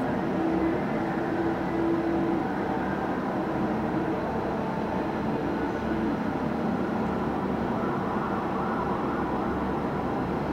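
Fire engine siren sounding faintly in the distance over the steady rumble of downtown traffic, heard from high above the street.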